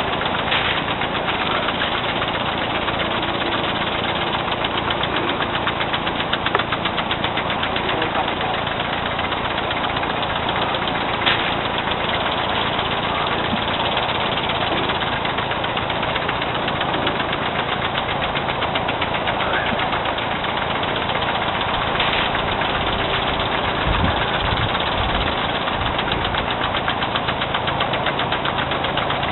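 Loud lawn sprinklers running: a steady, fast ticking hiss that does not let up, with an odd louder click now and then.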